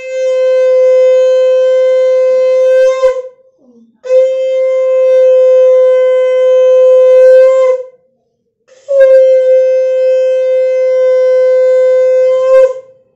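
A conch shell (shankha) blown in three long, steady, loud blasts of about three to four seconds each, with a short breath between them. It is sounded during the aarti of a Hindu puja.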